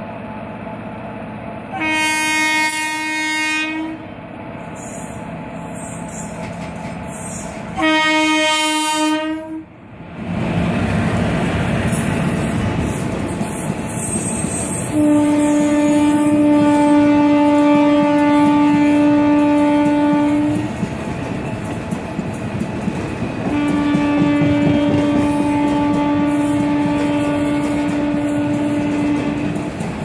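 WAP-4 electric locomotive horn: two short blasts about two and eight seconds in, then two long blasts of about five and six seconds. From about ten seconds in, a passenger train's rumble and clickety-clack of wheels run underneath the horn.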